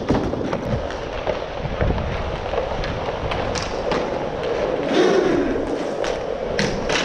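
Inline hockey skate wheels rolling and scraping on plastic sport-court tiles, heard close from a helmet-mounted camera, with scattered sharp clacks of sticks and puck several times.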